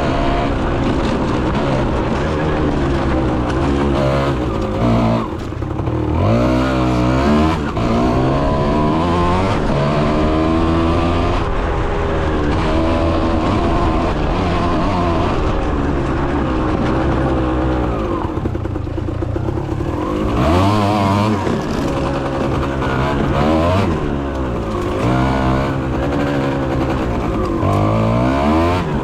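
Kawasaki KX 125 two-stroke single-cylinder dirt bike engine under way, its pitch climbing and dropping again and again as the throttle is opened and closed through the gears.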